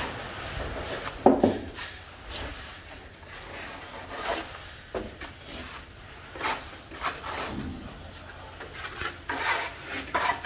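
Plastering trowel scraping and smoothing wet cement render across a brick wall: a run of short rasping strokes, with one louder knock about a second and a half in.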